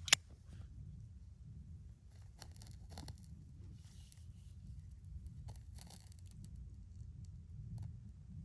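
Wood campfire crackling: one loud sharp snap right at the start, then scattered faint crackles and pops over a low rumble.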